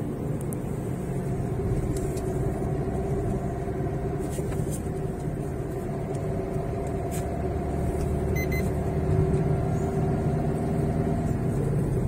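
Car driving at a steady speed, heard from inside the cabin: a steady low hum of engine and road noise.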